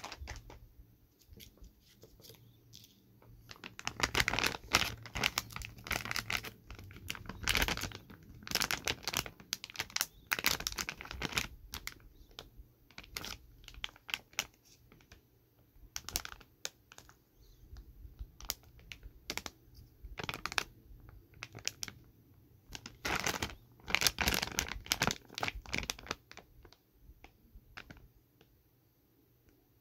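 Plastic snack bag crinkling as it is held and turned over in the hands, in irregular bursts of crackles. The busiest stretches come a few seconds in and again past twenty seconds.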